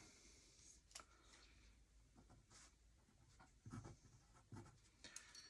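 Faint scratching of writing and drawing on paper, with a light click about a second in.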